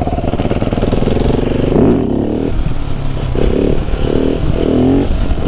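KTM 690 SMC R supermoto's single-cylinder engine revving up hard under acceleration for about two seconds, then the throttle opened and closed in four or so quick surges.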